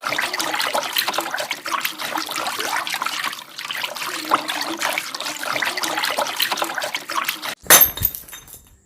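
Water trickling and splashing steadily, with many small splashes, for about seven and a half seconds. It cuts off abruptly and is followed by a brief, louder burst that fades out.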